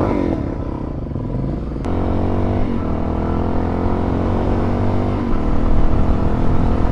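Suzuki DR-Z400 dual-sport motorcycle's single-cylinder four-stroke engine running under way. It settles to a steady note about two seconds in, with two brief dips.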